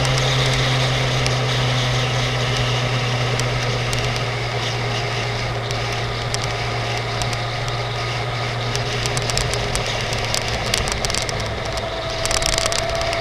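Suzuki GSX-R750 K5's inline-four engine running steadily at a constant cruise, with wind noise on the microphone. Scattered light ticks come in during the second half, and a faint whine rises near the end.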